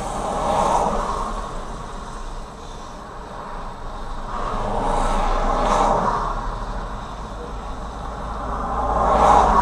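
Road traffic passing on a highway: three vehicles go by, each a swelling and fading rush of engine and tyre noise, the middle one a heavy lorry. A steady low rumble sits underneath.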